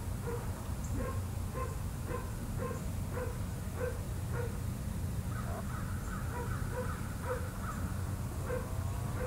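A bird calling over and over, about two short calls a second, over a steady low rumble.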